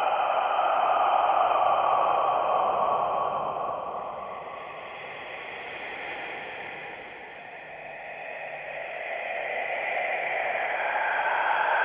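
Eerie whispered breathing, a slow breathy hiss. It swells, fades away a little past the middle, and swells again toward the end.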